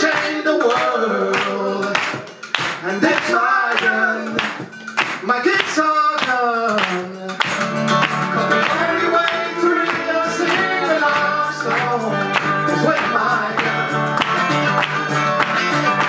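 Live acoustic folk-blues band: hand claps and washboard strokes with sliding sung lines over the first seven seconds, then the band comes in fuller with a steady bass line, Weissenborn lap slide guitar and acoustic guitar.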